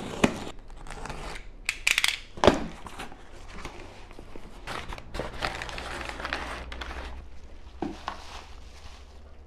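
A cardboard box being slit open with a box cutter and its flaps opened, then crumpled brown packing paper rustling and crinkling as it is pulled out. Several sharp knocks in the first few seconds.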